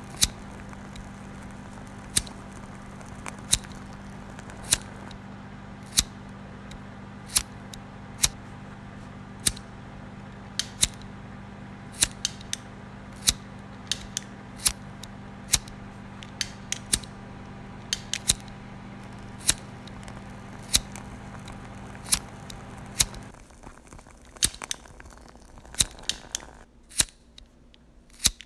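Sharp clicks at irregular intervals, about one a second, over a steady hum with a higher tone above it. The hum cuts off about three-quarters of the way through, and the clicks go on over faint hiss.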